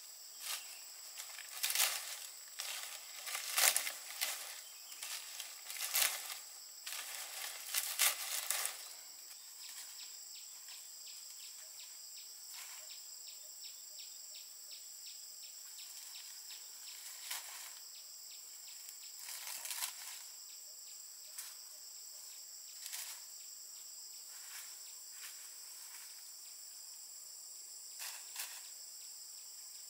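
Dry palm leaves rustling and crackling as they are handled and pushed into a thatched roof, in repeated bursts for about the first nine seconds. After that comes a steady, high insect chorus, with a few soft leaf rustles now and then.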